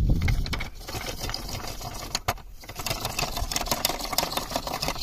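Hand-cranked coconut scraper grating the white flesh of a halved coconut against its serrated blade: a fast, steady rasping, with one sharp click about two seconds in.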